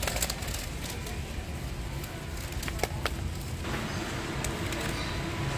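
Warehouse store background: a steady low hum with a few scattered light clicks and knocks.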